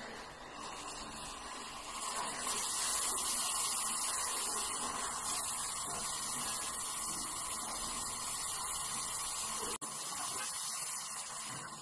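Brazing torch flame hissing steadily, growing louder about two seconds in, with a brief break near the end.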